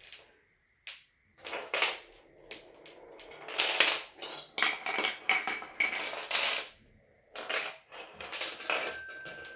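Wooden dominoes, blocks and levers of a Zig & Go chain-reaction set toppling and clattering one after another, with marbles running and clicking along the wooden tracks, in a string of knocks and rattles. Near the end a small bell rings and keeps ringing.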